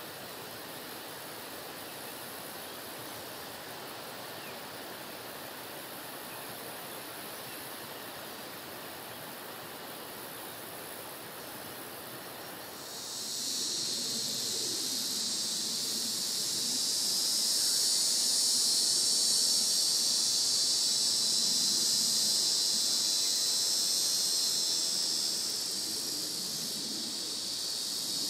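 A soft, even background hiss. About halfway through, a loud, steady, high-pitched insect buzz comes in and holds.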